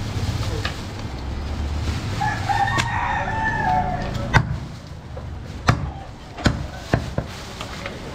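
A rooster crows once, a call of a little over a second about two seconds in. Then come several sharp chops of a butcher's knife striking through goat meat and bone into a wooden chopping block.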